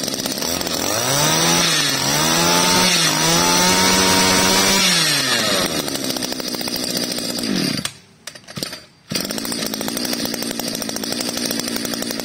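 Shindaiwa S26 brush cutter's small two-stroke engine running, revved up by hand at the carburetor for a few seconds and then dropping back to idle. About eight seconds in it cuts out, then runs again at idle a second later.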